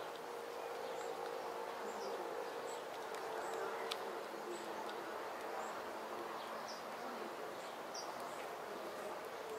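A paper wasp chewing and scraping fibre from weathered wood with its mandibles to gather nest pulp: a steady faint rasping. A faint insect hum comes and goes through it.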